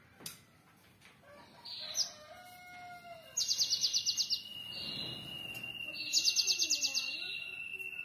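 Cinereous tit (gelatik batu) singing: two rapid high trills of about ten notes a second, each lasting about a second, one a little past three seconds in and one near the end. A thin steady high tone is held under them.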